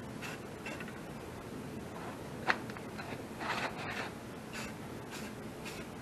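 Aerosol spray-paint can giving short hisses of spray, with one sharp click about two and a half seconds in.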